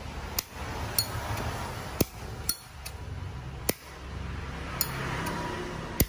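Brass Zippo lighter being handled while lit: about half a dozen sharp metallic clicks and clinks, irregularly spaced, over a low steady hum.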